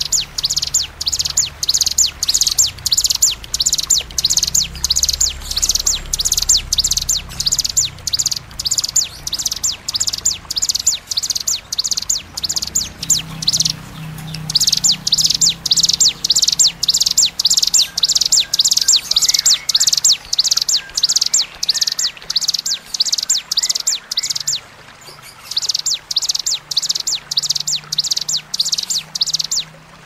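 Recorded calls of small prinias (the ciblek, ciwah and cigun types, ciblek being the bar-winged prinia), sounding as a rapid, shrill 'tembakan' string of sharp notes repeated a few times a second. The notes come in long bouts with a few brief breaks, over a faint low hum.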